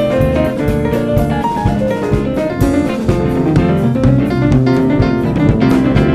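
A band playing jazz-style music, with a drum kit keeping a steady beat under guitar.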